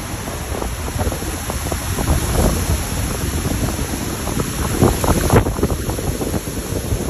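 Strong, gusty storm wind buffeting the microphone in a loud, unsteady low roar, from the thunderstorm driving a nearby tornado.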